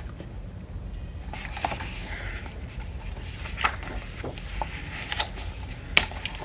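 Picture-book pages being turned and handled: soft paper rustling with a few sharp crinkles and taps, over a steady low background hum.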